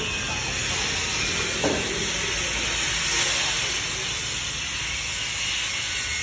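Steady hiss from a 1.5 kW handheld laser welding machine, with a short click about a second and a half in.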